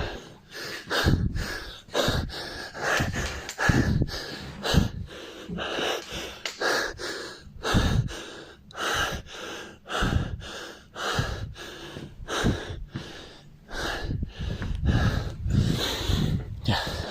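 A person's heavy breathing close to the microphone: short, repeated breaths, about one or two a second.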